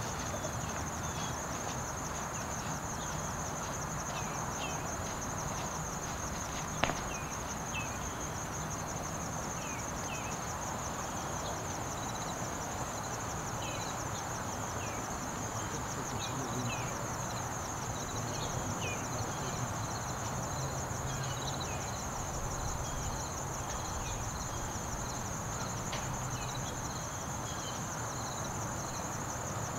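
Insects trilling steadily in a continuous, high-pitched, fast-pulsing buzz over a light outdoor noise haze, with scattered short chirps and a single sharp click about seven seconds in.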